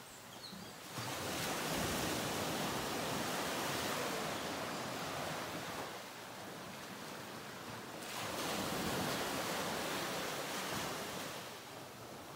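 Ocean surf washing in on a beach: two long swells of wave noise, the first building about a second in and the second about eight seconds in, each easing off as it draws back.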